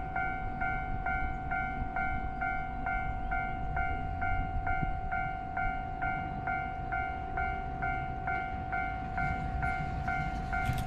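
Japanese level-crossing warning bell ringing steadily at about two strikes a second. Under it is the low rumble of an approaching EF210 electric locomotive with its container freight train.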